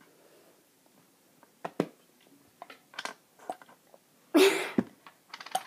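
A person working up a burp: a few small mouth and swallowing clicks, then one short, breathy burp about four seconds in, followed by a quick patter of small clicks.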